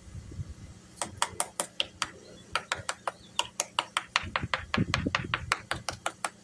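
Knuckles rapping on the underside of a Luhrs 360's fiberglass hull, a quick run of sharp taps at about five or six a second, starting about a second in. It is a tap test, sounding the laminate for hollow voids where air sits under the skin.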